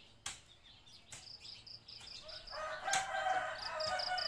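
A rooster crows once, a long call starting about halfway through, over insects chirping in quick, even pulses.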